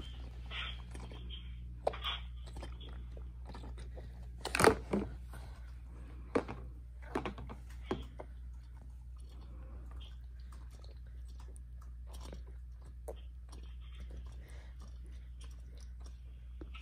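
A baby sucking and swallowing from a sippy cup, with scattered small wet clicks and smacks from his mouth on the spout; the sharpest click comes about five seconds in.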